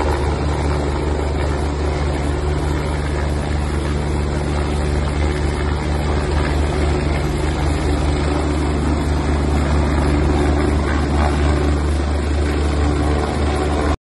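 Helicopter hovering overhead, its rotor and engine making a steady, loud drone.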